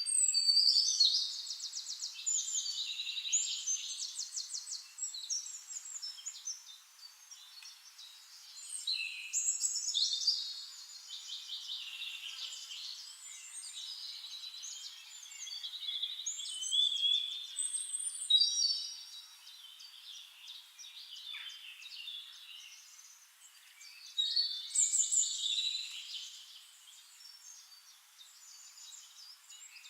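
Birds singing: high, fast-trilling song phrases that start about every seven to nine seconds, with quieter chirping between them.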